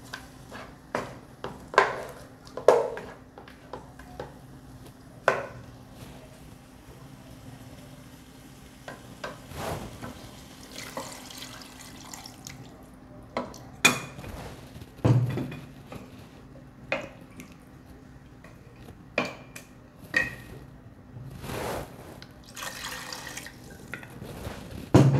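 Wooden spoon knocking and scraping against a non-stick pot as raw chicken pieces are stirred, with scattered sharp clicks. Water poured from a jug into the pot splashes onto the chicken, a rushing pour around the middle.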